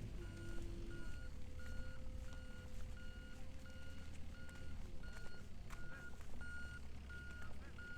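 A vehicle's reversing alarm beeping evenly, about one and a half beeps a second, over a low rumble.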